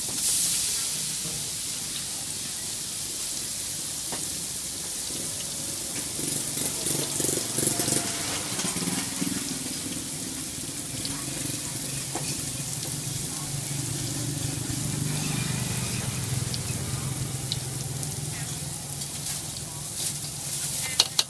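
Battered strips deep-frying in a large pan of hot oil, a steady hiss of bubbling oil. It swells just after the start as fresh batter goes into the oil.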